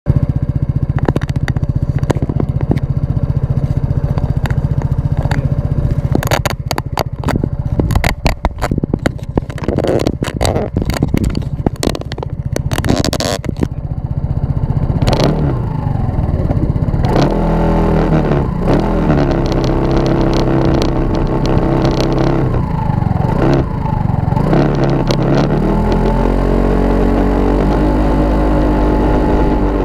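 Kymco Racing S scooter engine idling, with a stretch of sharp knocks and clatter close to the microphone. From about fifteen seconds in, the engine revs and the scooter pulls away, its pitch climbing and falling with the throttle as it rides.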